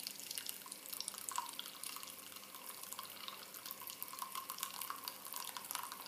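Brewed coffee trickling from the spout of a stainless-steel Esbit stovetop coffee maker into a mug: a faint, steady run of small drips and splashes. Steam pressure in the pot is forcing the coffee up through the grounds as the brew comes to the boil.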